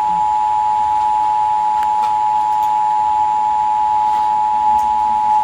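Emergency Alert System two-tone attention signal: two steady pitches just under 1 kHz sounding together without a break, the alarm tone that announces an emergency alert broadcast.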